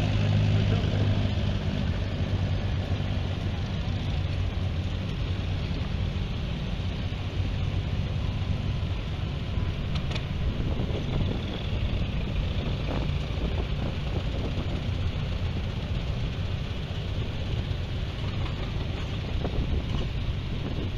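Vintage farm tractors driving past one after another, their engines running steadily. A low engine drone is strongest at the start and fades over the first couple of seconds as one tractor moves off, leaving a rougher low rumble from the others.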